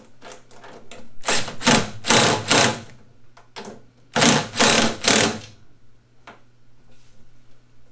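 Cordless drill/driver running in short bursts as it drives bolts through a caster's mounting plate into a sheet-steel tool cart base. There are two main runs, one starting a little over a second in and one about four seconds in, with a faint steady hum between them.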